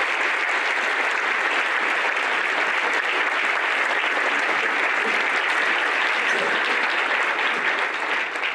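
An audience applauding steadily, a dense patter of many hands clapping that begins to die away at the very end.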